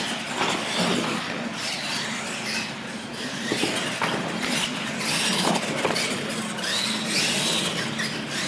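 Radio-controlled monster trucks racing, their motors and gears whining up and down in pitch as they speed up and slow down, with scattered clicks and knocks.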